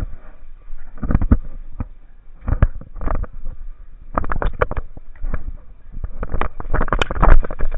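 Airsoft gunfire: irregular bursts of sharp pops and knocks, coming in quick runs about halfway through and loudest near the end.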